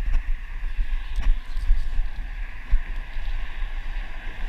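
Wind buffeting the microphone in a gusting low rumble, over a steady hiss, with a light knock about a second in.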